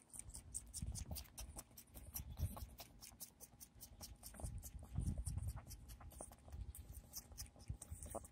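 Soft clicking and smacking, several small clicks a second, of a baby goat sucking on a plastic pacifier, with low rumbles from handling.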